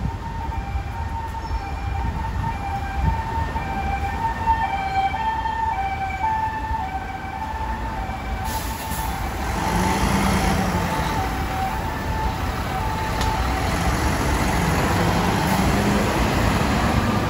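A run of short electronic tones stepping up and down in pitch, two to three a second, over street traffic. About halfway through the tones fade under rising traffic noise as a heavy dump truck passes close by, its engine and tyres loud.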